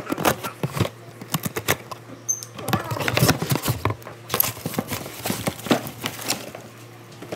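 Foam packing peanuts and a cardboard shipping box rustling and crackling as hands dig through them and pull out a boxed item, an irregular run of crinkles and clicks.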